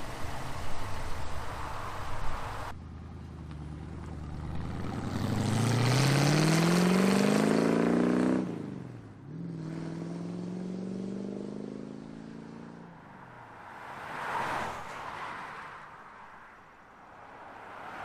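Subaru WRX STI with its exhaust deleted (muffler removed) accelerating hard. Its engine note climbs steadily, drops sharply at a gear change about eight and a half seconds in, then climbs again. Near the end come two brief whooshes of a car going past.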